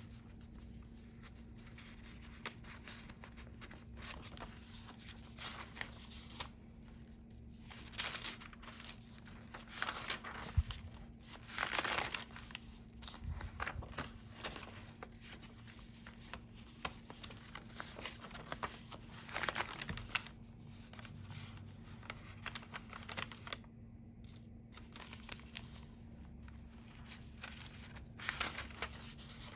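Paper pages of a handmade junk journal being handled and turned: continuous rustling and crinkling of crumpled kraft and ledger paper, with louder swishes every few seconds as a page flips over.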